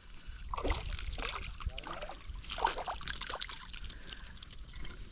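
Water sloshing and splashing at a kayak in irregular bursts.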